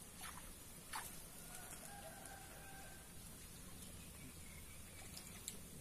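Faint rooster crowing: one drawn-out call starting about a second and a half in and lasting over a second. A few light clicks sound near the start and near the end.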